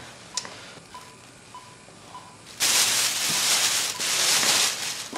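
Foil emergency space blanket crinkling and rustling loudly as it is pulled back over the patient, starting suddenly about two and a half seconds in. Before that, a patient monitor gives short high beeps about every half-second to second.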